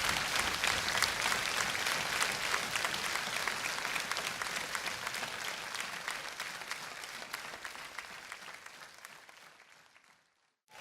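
Large audience applauding, dense clapping that fades out slowly over the last several seconds and stops just before the end.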